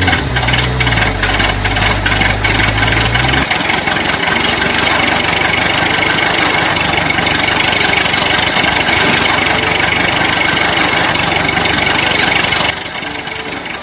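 Vehicle engine running steadily as the toy machine drives in, with a low hum for the first few seconds. The sound cuts off abruptly near the end.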